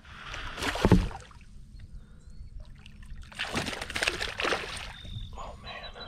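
A hooked fish splashing and thrashing at the surface right beside a kayak as a landing net is pushed into the water to scoop it. There are two loud bouts of splashing, about a second in and again around four seconds in, with lighter splashing after.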